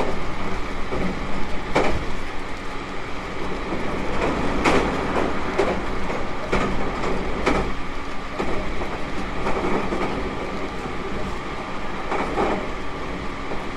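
Interior running sound of a JR Kyushu 813 series 200 subseries electric train at speed: a steady rumble of wheels on rail with a few steady tones under it, broken by irregular sharp clacks as the wheels cross rail joints.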